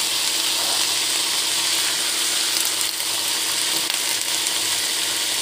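A heap of fresh mint leaves frying in hot oil in a pan, giving a steady sizzle.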